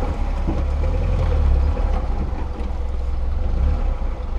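Lada Niva 4x4's engine running with a steady low rumble, heard from inside the cabin while the car drives along a rough dirt track.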